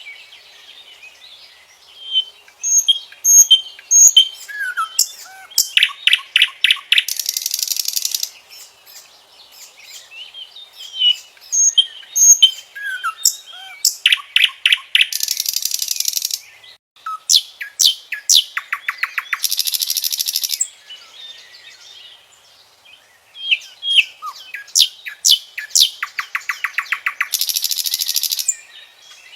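Common nightingale singing: several song phrases a few seconds apart, each mixing clear whistled notes and fast runs of repeated notes, and ending in a harsh buzzing rattle.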